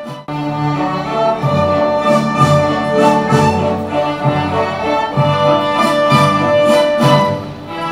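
Orchestra with a violin section playing sustained, legato music, briefly broken just after the start. The track is the cleaned-up version, with the ringing phone edited out.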